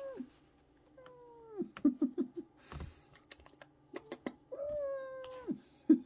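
Kittens meowing: three long, drawn-out meows that drop in pitch at the end, one trailing off at the start, one about a second in and one near the end. Scattered sharp clicks and a few short low mews come in between.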